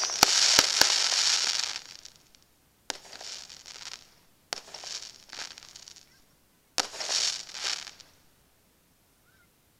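Aerial firework shells bursting with crackle effects. A few sharp bangs and dense crackling fill the first two seconds, then three more bursts follow, each a sharp report trailing off into about a second of crackling, before the sound dies away near the end.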